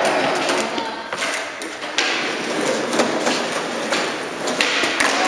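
Skateboard urethane wheels rolling over the concrete floor of an underground car park, a steady rumble. Sharp clacks of the board's tail and wood hitting the concrete come about a second in, at two and three seconds, and again near the end.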